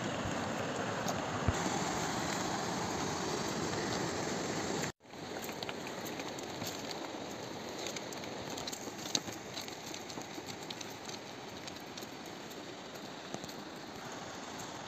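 Steady rushing noise of a mountain river, broken by a brief cutout about five seconds in. After it come faint scattered clicks of pack donkeys' hooves on a stony path.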